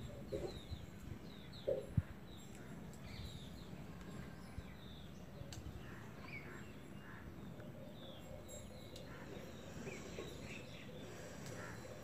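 Small birds chirping on and off over steady outdoor background noise, with a single sharp click about two seconds in.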